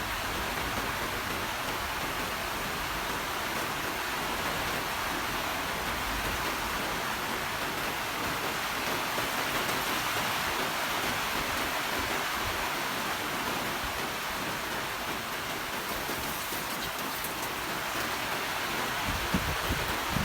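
Steady rain falling, an even rushing hiss that swells a little midway, with a few brief low thumps near the end.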